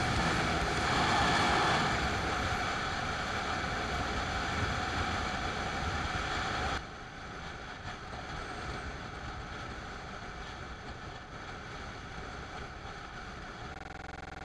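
Wind buffeting and road noise from a motorcycle-mounted action camera on a Bajaj Pulsar 200NS at highway speed. The noise drops sharply about seven seconds in and continues quieter, and a faint steady tone takes over near the end.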